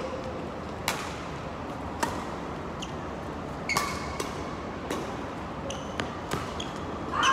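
Doubles badminton rally: sharp racket strikes on the shuttlecock about once a second, with short high squeaks of shoes on the court floor.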